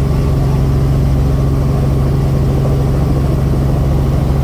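Helicopter engine and rotor running with a steady low drone, heard from inside the cabin.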